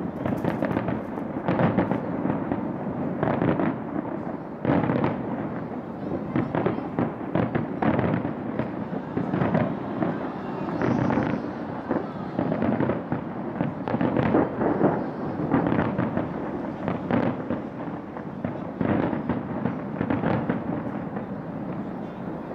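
A dense barrage of fireworks from a skyscraper-mounted show: many bangs and booms close together over a constant crackling wash, without a break, easing slightly near the end.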